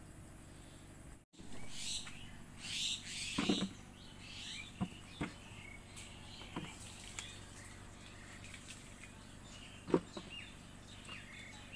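Small birds chirping, with several short dull knocks as fallen mangoes are dropped into a plastic bucket. The loudest knock comes near the end.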